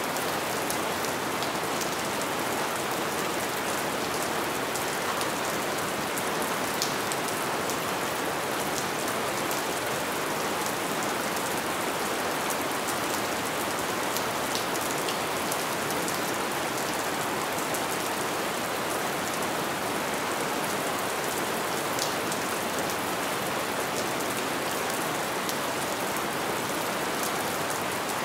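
Steady light rain falling: an even, unbroken hiss with scattered sharper drop ticks.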